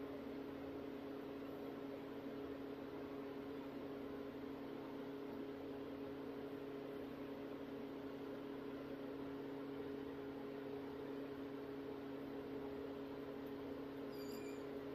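Steady electric hum: two low, unchanging tones over an even hiss, as from a motor-driven appliance running in the room.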